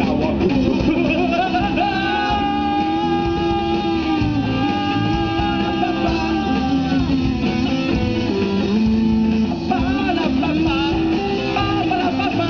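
Live band playing through a PA: strummed acoustic guitar, electric guitars and a drum kit, with a lead voice singing long held notes.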